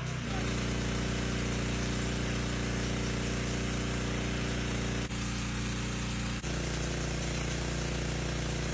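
Gas-engine pressure washer running steadily, its engine drone under the hiss of the high-pressure spray blasting paint off chimney brickwork. The sound dips for an instant twice, about five and six and a half seconds in.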